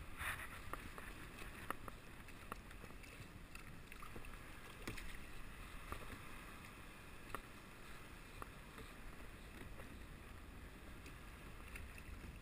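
Water lapping quietly against a fishing kayak's hull, with a low wind rumble on the microphone and a few scattered faint clicks.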